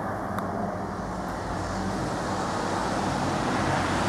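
Road traffic on a wet street: a steady hiss of tyres and engine noise that grows louder toward the end as a vehicle approaches.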